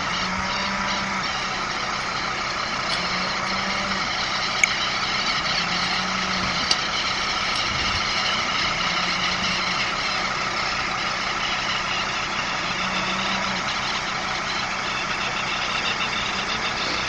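A vehicle engine running steadily, with two short sharp clicks about four and a half and six and a half seconds in.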